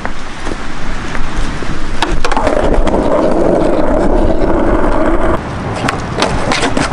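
Skateboard rolling over asphalt, its wheels giving a steady rumble for about three seconds, with sharp clacks of the board hitting the ground near the start of the ride and again near the end.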